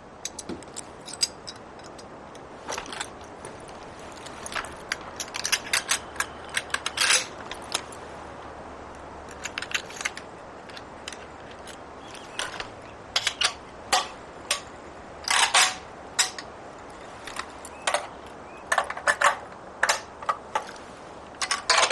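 Metal parts of an AK-pattern rifle clicking and clacking as they are fitted together and the action is worked. The clicks come irregularly, sometimes in quick runs of several, over a faint steady hiss.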